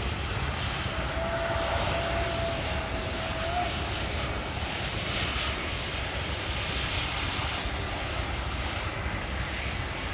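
Airbus A319 airliner's jet engines running steadily as it rolls along the runway, an even rushing roar. A thin steady tone sounds over it for a couple of seconds near the start.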